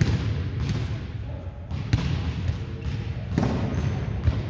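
Volleyball being played: a run of sharp slaps of hands and arms on the ball, about five in a few seconds, echoing in a gym.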